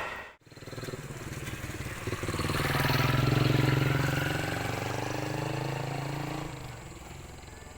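A vehicle passing close by: a low, steady motor hum that swells to its loudest about three seconds in and fades away over the next few seconds.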